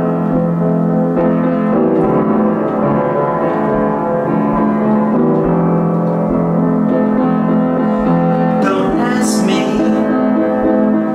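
Upright piano played slowly, with held chords and a melody line. About nine seconds in, a short hissing sound comes in over the piano.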